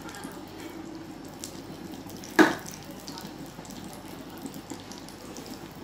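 Okra frying in hot oil in a pan, a steady sizzle, with one sharp knock about two and a half seconds in.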